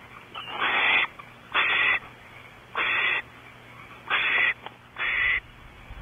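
Barn owl giving five harsh, hissing screeches about a second apart, each lasting about half a second.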